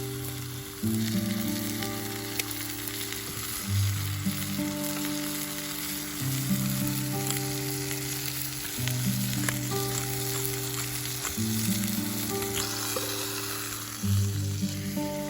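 Steak sizzling in a frying pan over a campfire, a steady hiss with scattered small pops, under background music of held low notes.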